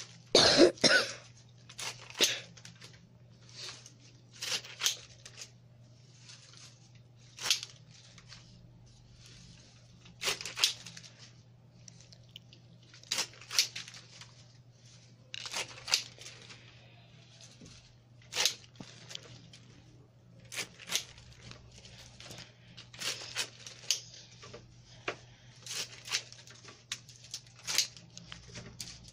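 Rose stems being stripped of their leaves: repeated short scraping, tearing strokes, one every second or two, over a steady low hum.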